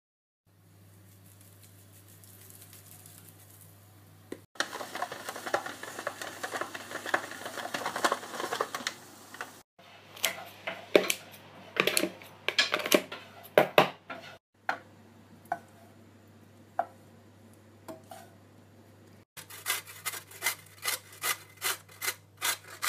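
Food preparation in short clips: a dense scraping rustle, then a knife chopping spiralised courgette in a plastic bowl in loud, irregular strokes, then fennel grated on a metal box grater at about three strokes a second. A low steady hum runs under each clip.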